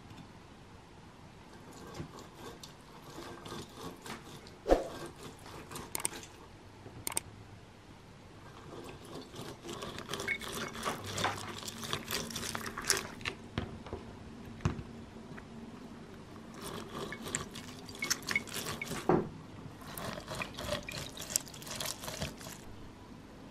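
Clementine halves twisted by hand on a plastic citrus reamer: wet squeezing and crackling in spells as the juice is pressed out and drips into the container, with a few sharp knocks.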